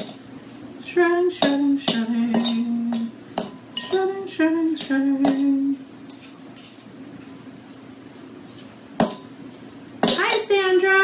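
Forks clinking and scraping in irregular clicks against a dish while shredding cooked rotisserie chicken. A woman hums a few short held notes in the first half, and a voice comes in near the end.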